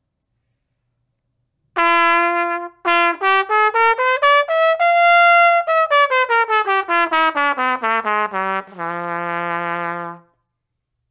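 Trumpet played through a 3D-printed plastic mouthpiece. It plays a held note, then a quick stepwise scale up to a long high note and back down, ending on a long low note that stops shortly before the end.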